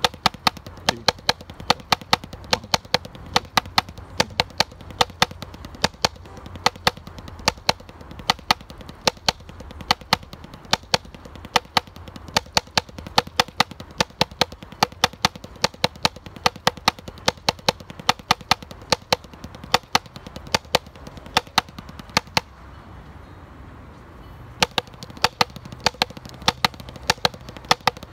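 Drumsticks striking a drum practice pad in steady alternating single strokes, a fast even stream of sharp taps. The playing stops for about two seconds near the end, then starts again.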